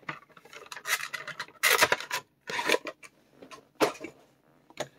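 HeroClix booster packaging being handled: a series of short rubbing and scraping noises, the loudest about two seconds in.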